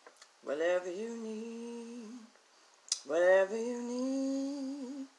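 A woman's voice singing two long held notes, each about two seconds, sliding up into each note and then holding it steady, with a short click between them.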